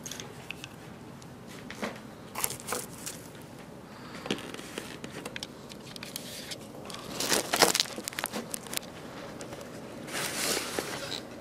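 Plastic bubble wrap and packaging crinkling as it is handled, with scattered light clicks and knocks, loudest a little past halfway and again near the end.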